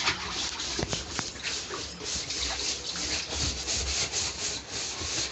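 Scrubbing the inside wall of a dirty plastic water tank: a rhythmic rubbing in short repeated strokes, a couple or so a second, as the grime is scoured off.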